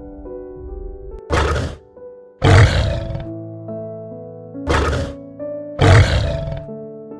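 A large animal roaring four times, in two pairs: a short roar followed by a longer, louder one. Gentle piano music plays underneath.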